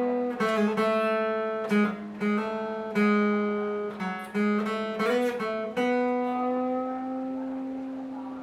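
Steel-string acoustic guitar, a copy of a Taylor 314ce, playing a slow single-note solo melody with string bends. It ends on a long held note that slowly dies away.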